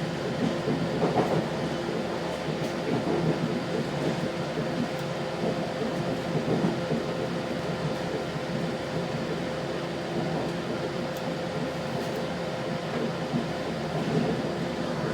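Interior running noise of an Adelaide Metro 3100-class diesel railcar under way, heard from inside the carriage: a steady rumble with a constant whine.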